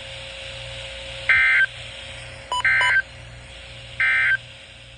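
Emergency Alert System end-of-message data tones: three short, identical electronic warbling bursts about a second apart, marking the close of the severe thunderstorm warning broadcast. A faint steady hum lies underneath.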